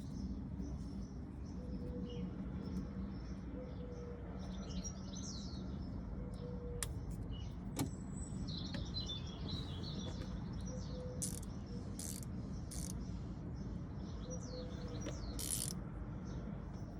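Small birds chirping and trilling over a steady low rumble, with a short low call repeating every two seconds or so and a few sharp clicks.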